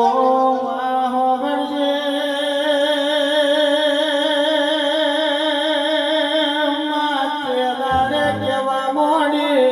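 Gujarati devotional singing: a singer holds one long note with a wavering vibrato for about seven seconds over musical accompaniment. Deeper low notes come in near the end.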